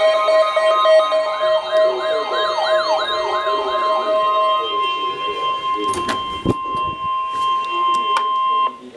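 An electronic alert siren sounds several quick rising-and-falling wails over a held electronic chord. About five seconds in, a single steady emergency alert tone takes over, with a brief crackle partway through, and the tone cuts off abruptly near the end.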